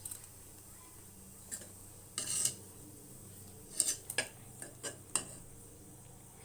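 A metal spoon stirring and mashing boiled gongura leaves in a cooking pot, clinking and scraping against the pot in a few short strokes, with one longer scrape about two seconds in and a cluster of clinks about four seconds in.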